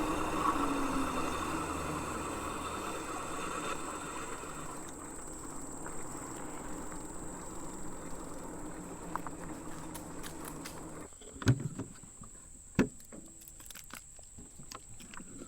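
Electric bike riding and slowing down: wind and tyre noise with a faint motor whine, falling in pitch at the start and fading away over about ten seconds. A few sharp knocks follow near the end. A steady high-pitched buzz runs throughout.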